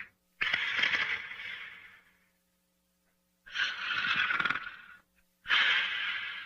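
Snoring during sleep: three loud, breathy snores, each about a second and a half long, starting abruptly and trailing off, with silent pauses between them.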